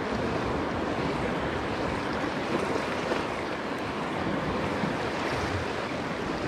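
Sea washing against a rocky shore: a steady rush of surf, with some wind on the microphone.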